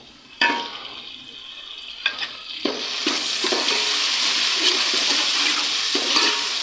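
Chopped tomatoes tipped into hot oil and fried onions in a metal pot, sizzling, while a steel ladle scrapes and clinks against the pot as they are stirred in. There is a sharp clatter about half a second in, and the sizzling grows louder from about three seconds in.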